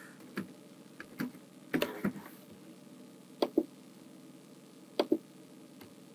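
Quiet, sharp clicks of a computer mouse and keyboard. There are a few single clicks at first, then clicks in close pairs about a second and a half apart.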